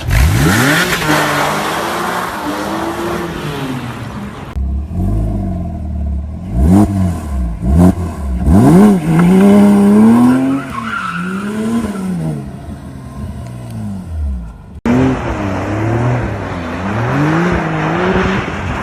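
Porsche sports car engines revving up and down hard in three short clips cut together, the engine pitch climbing and dropping again and again, with a broad hiss under the first and last clips. The clips change abruptly about four and a half and fifteen seconds in.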